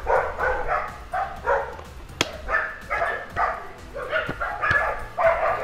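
Dogs barking repeatedly in quick succession, with two sharp clicks about two seconds and about four and a half seconds in.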